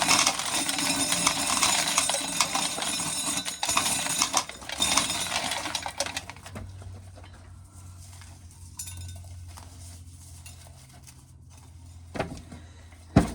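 Dried corn being shelled: dry kernels clatter and clink against metal in a dense rattle, which stops about six seconds in and leaves a faint steady low hum with a few scattered clicks.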